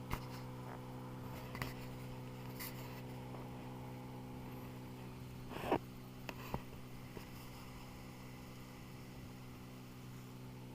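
Tohatsu 9.8 outboard motor running at a steady speed, an even low hum. A few short knocks sound over it, the loudest about six seconds in.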